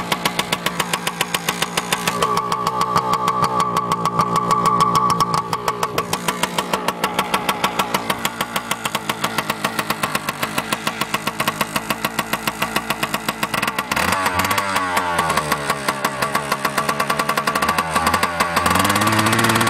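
A Yamaha YZ85's 85cc two-stroke single-cylinder engine running soon after a cold start, idling with a fast, even popping beat. The revs rise for a few seconds about two seconds in, then fall back; later they dip and climb again, with one more rise near the end.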